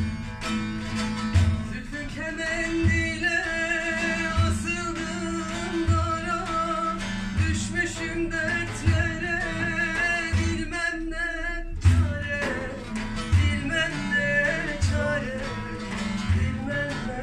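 Live folk music: a long-necked lute is plucked while a large frame drum keeps a slow, steady beat, with a deep stroke about every second and a half, and a voice sings along with wavering ornaments. About eleven seconds in, most of the sound drops out for a moment, then the drum comes back in with a strong stroke.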